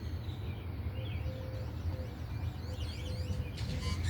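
Birds chirping and singing in several quick, warbling phrases, over a steady low rumble.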